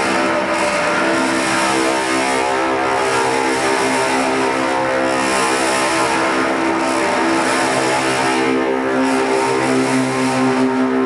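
Dance performance score played over a PA speaker: loud, steady droning music of several held tones over a dense, rough wash of noise.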